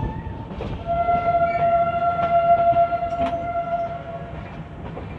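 Train horn sounding one long, steady note that starts about a second in and lasts about three and a half seconds, over the rumble and clicking of a train.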